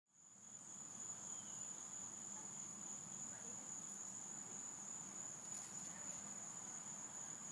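Faint, steady high-pitched chirring of crickets, unbroken throughout, over a low outdoor background noise.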